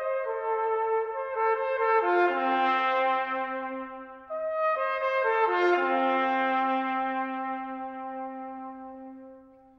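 Trumpets playing a short brass passage in two phrases. Each phrase has notes stepping downward and overlapping into a held low chord, and the second fades out near the end.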